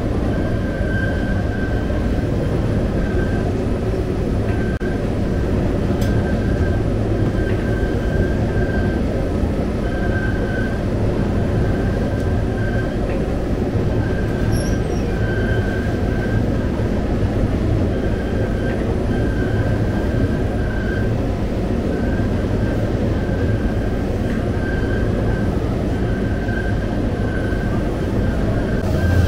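Bakery dough machine, a rotating round dough table with a belt conveyor, running with a steady low hum and a short squeak about every second and a half.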